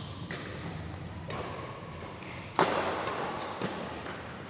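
Badminton rackets striking the shuttlecock in a doubles rally, four sharp cracks about a second apart, the loudest a little past halfway, each echoing briefly in a large hall.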